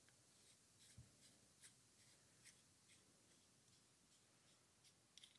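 Near silence, with faint light ticks and rubs, about two a second, from a Vetterli rifle bolt's metal knurled knob being unscrewed by hand.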